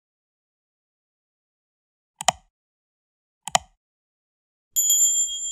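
Sound effects of an animated subscribe-button end card: after a couple of seconds of silence, two mouse clicks about a second and a quarter apart, then a bright bell-like notification ding near the end that rings on.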